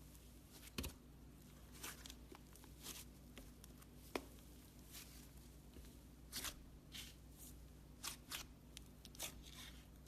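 Slime being squeezed and poked by hand: faint, irregular squishes and crackles, with a sharper click about four seconds in.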